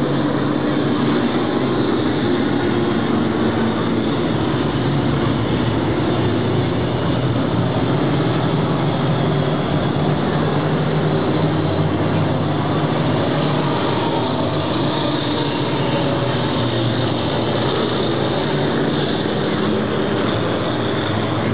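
Several stock car engines running around a short oval track, a steady, loud drone without sharp revs or breaks.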